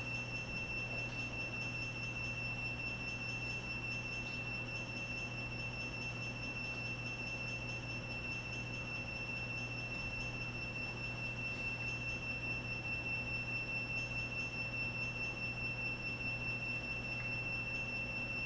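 Steady high-pitched tone from the FPV quadcopter's onboard buzzer, which sounds while the drone waits for its radio link, over a low steady hum.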